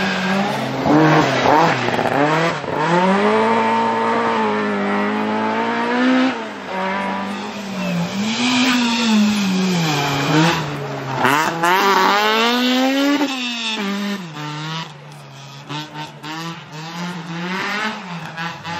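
Rally car engine revving hard, its pitch climbing and dropping back again and again through throttle lifts and gear changes, with a few sharp cracks along the way. It goes quieter for a couple of seconds near the end, then picks up again.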